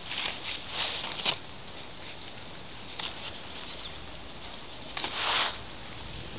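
Dry leaf and grass rustling and crackling under fingers. There is a quick run of crackles at the start, a single click about three seconds in, and a longer, louder rustle near the end.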